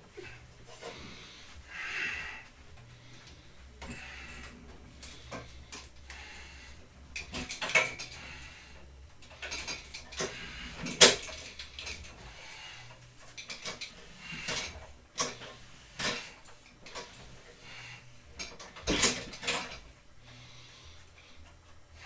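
Heavy breathing between exercises, with scattered metallic clanks and knocks of home-gym equipment being handled and moved; the sharpest knock comes about halfway through, with a few more near the end.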